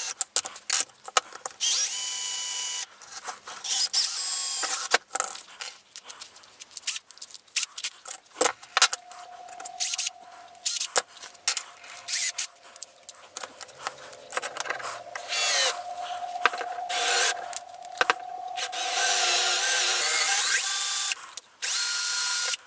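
Bosch cordless drill running in repeated short bursts of whine, drilling a hole in an aluminium bar, with clicks and knocks of handling the drill and workpiece between bursts.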